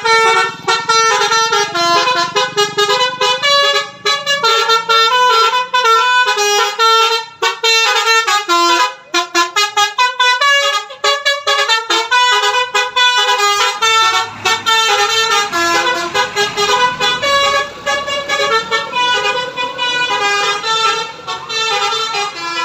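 Bus "telolet" horn, a bank of air horns playing a quick melody of stepped notes, one note after another every few tenths of a second, without pause.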